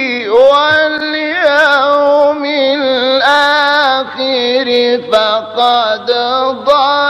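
A voice chanting Quran verses in the melodic, drawn-out recitation style, holding long ornamented notes that waver and bend, with short breaks for syllables.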